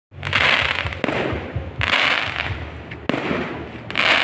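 Aerial fireworks going off: sharp bangs about a second in and again about three seconds in, with repeated sizzling crackle as the shells burst into sparks. A low steady hum runs underneath.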